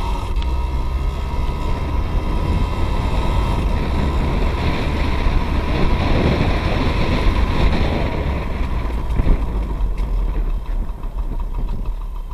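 Yamaha PW80's small two-stroke single-cylinder engine accelerating hard on a top-speed run, its note rising and strongest around the middle, then easing off near the end as the bike slows. The engine is running on 40:1 premix with its oil injection bypassed. Wind rumble on the microphone underlies it.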